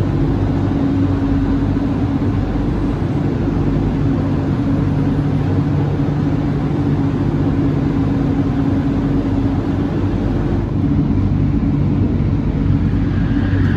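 Steady low mechanical drone of rail-transit machinery, with several held hum tones. A higher whine comes in near the end.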